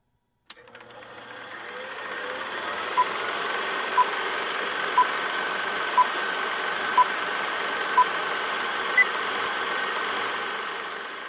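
Film projector running, fading in over the first couple of seconds after a click, with a short beep once a second for six counts of a film-leader countdown and then one higher beep; the projector sound fades away near the end.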